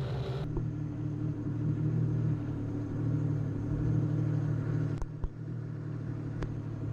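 Jet ski engine running steadily at low speed. About half a second in, a high hiss cuts off suddenly, leaving the engine's drone, with a few faint clicks near the end.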